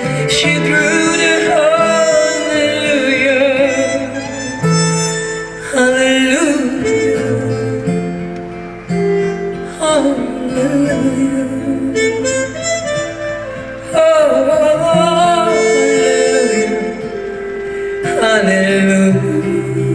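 Live trumpet playing a slow melody with wavering vibrato over guitar chords.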